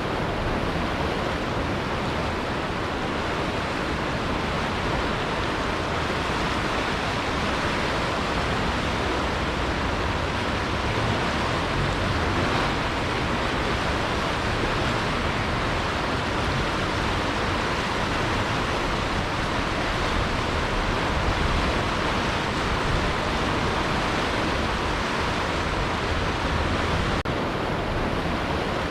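Steady, unbroken rushing noise that stays even throughout, with no swells, gusts or separate sounds.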